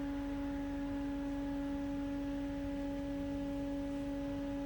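Steady electrical hum from a Haas DT1 CNC machine as its control reboots: one clear, unchanging tone with fainter overtones.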